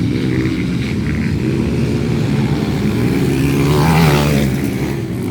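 Motocross motorcycles of the 200 cc class running on the track, their engines droning and changing pitch with throttle, loudest about four seconds in.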